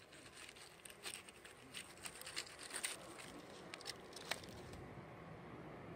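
A knife cutting a morel mushroom off at its stem base and disturbing dry leaf litter: a faint, irregular scatter of crackles and small clicks, with one sharper click about four seconds in.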